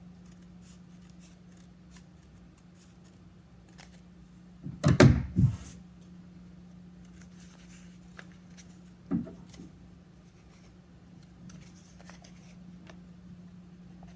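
Hand-building with leather-hard clay slabs and tools on a work table: scattered light clicks and scrapes, a quick cluster of knocks about five seconds in and a single knock about four seconds later, over a steady low hum.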